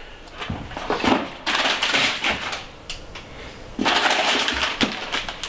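Cardboard box and plastic parts packaging being handled and rummaged through, rustling in two bursts: one about a second and a half in, another near the four-second mark.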